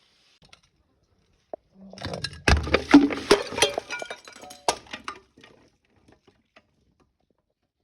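Glass breaking and crunching: a burst of sharp cracks and clinking shards starting about two seconds in, loudest in its first second, trailing off over about three seconds.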